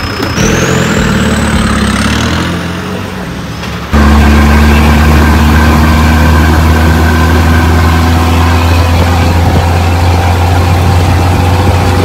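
Vehicle engine running, with a rising high whine over the first couple of seconds. About four seconds in it switches abruptly to a louder, steady low engine drone.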